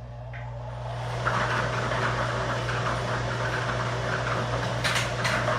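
Air-blower lottery ball machines running, the numbered balls rattling and tumbling in the air stream: a steady motor hum with a dense crackle that builds over the first second, then runs steady, with a couple of sharp clicks near the end.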